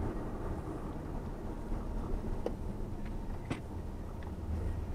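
Road and engine noise heard inside a moving car's cabin: a steady low rumble, with a few brief clicks near the middle.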